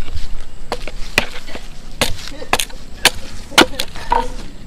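Knife blade chopping and shaving a wooden stick: a series of sharp wooden chops, about two a second.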